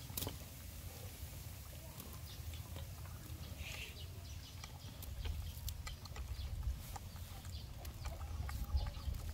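Macaques picking chopped food off a plastic plate and eating: faint scattered clicks and taps over a low steady rumble, with a few faint animal calls in the background.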